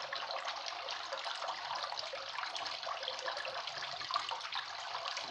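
Steady hiss with a fine crackle in it, even throughout and without speech.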